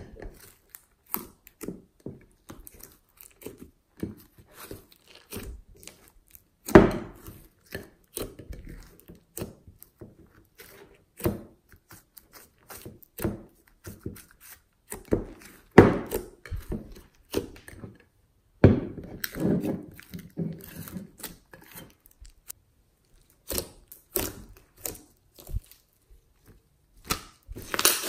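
Glossy slime being squished, stretched and kneaded by hand: irregular sticky squelches, pops and tearing sounds, with a few louder pops along the way.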